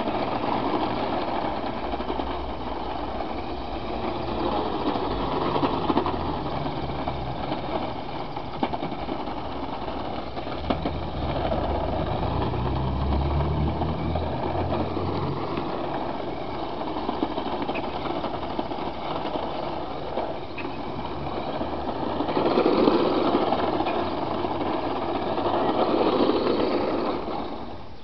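Small engine of a 1:10 scale radio-controlled car running steadily, growing louder for a few seconds near the end before dropping away.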